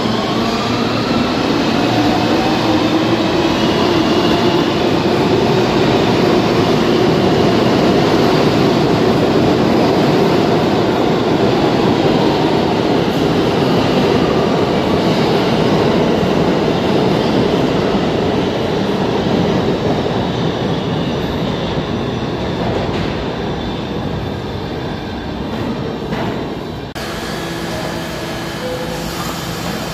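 New York City subway trains running through the station: a steady loud rumble of wheels on rail, with a whine that glides slowly in pitch. The sound eases off over the last ten seconds and changes abruptly near the end.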